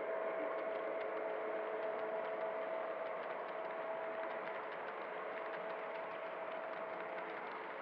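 O scale model trains running on the track: a steady electric motor and gear whine with a rumble of wheels and light clicking over the rail joints, as a tank car train passes on the next track. The whine fades about halfway through.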